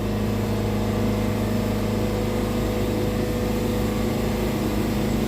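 Wood-Mizer portable bandsaw mill running steadily, its engine holding a constant hum while a resharpened Turbo 7 band blade is fed slowly through a red cedar log.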